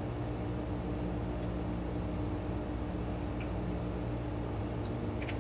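Steady mechanical hum of a ventilation fan, with a few light clicks from things being handled, the clearest near the end.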